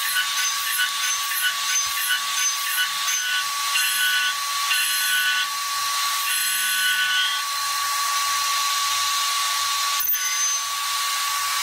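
CNC milling machine cutting a metal impeller with a small end mill: a steady high spindle whine under a gritty, chattering cutting noise, with a brief click about ten seconds in.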